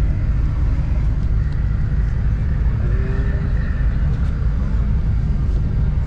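Steady low rumble of a bus's engine and running gear heard from inside the passenger cabin.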